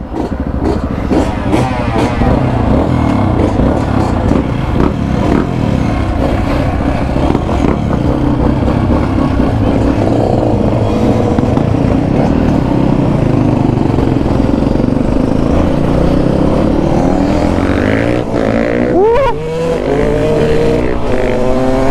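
Yamaha XT250's single-cylinder four-stroke engine running as the bike rides off and pulls along a dirt trail, the engine note shifting with the throttle.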